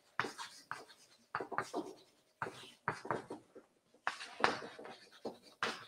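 Chalk writing on a chalkboard: short, irregular scratching strokes of chalk across the board surface.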